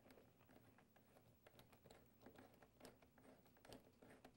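Faint, irregular clicks and scrapes of a flat-blade screwdriver turning the worm screw of a stainless hose clamp, tightening it on a ribbed vacuum hose.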